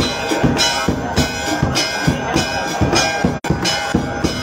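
Hindu temple aarti being played: drum beats about twice a second with bells and cymbals clanging in time, loud and continuous. The sound cuts out for a split second about three and a half seconds in.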